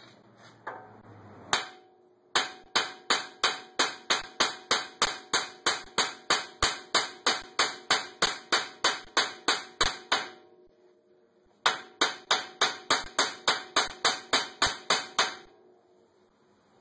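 Hammer blows on the steel steering knuckle beside a tie rod end, meant to shock the tapered stud loose. A couple of single blows, then two long runs of rapid, evenly paced ringing metal strikes at about three a second, with a pause of about a second and a half between them.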